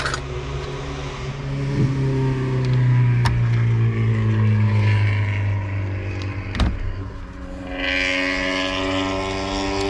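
Electric drill turning a 19 mm socket on an extension to spin off a steering wheel retaining nut. The motor hum sinks in pitch as it loads up and climbs again near the end as the nut frees, with a few sharp clicks along the way.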